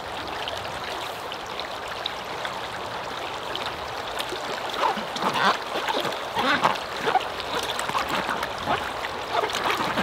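Creek water running steadily; from about halfway through, water sloshing and splashing in a small plastic bucket as a shirt is worked and squeezed by hand in soapy wash water.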